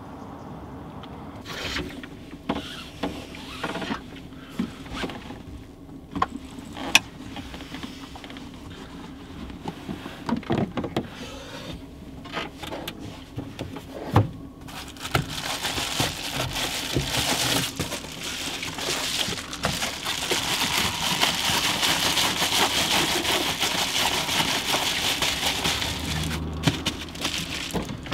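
Curtains being drawn back and a reflective foil window screen being taken down inside a camper van. There are scattered clicks and knocks at first, then from about halfway a long crinkling rustle as the foil screen is pulled off and rolled up. A steady low hum from the running diesel night heater sits underneath.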